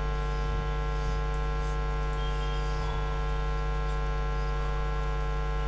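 Steady electrical mains hum: a constant low drone with many evenly spaced overtones that does not change.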